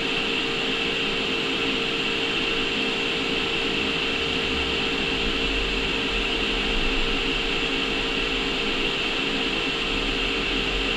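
TIG welding arc on mild steel burning steadily with 309L stainless filler: an even hiss with a steady hum underneath, no breaks.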